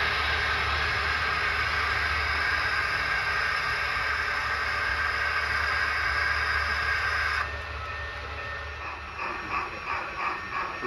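Model railroad train running on the layout: a steady rushing noise with a low hum underneath, which drops away suddenly about seven seconds in.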